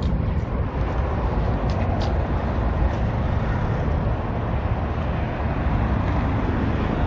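Steady noise of road traffic passing, a dense rumble heaviest in the low end, with a few faint clicks about two seconds in.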